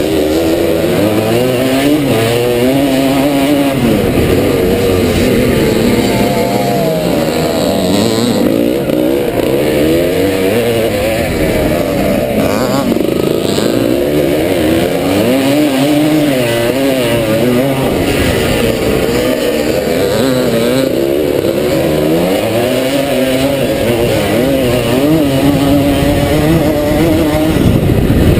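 1977 SWM 250RS two-stroke motocross engine ridden hard, its pitch climbing and dropping again and again as the rider opens and shuts the throttle and shifts through the gears.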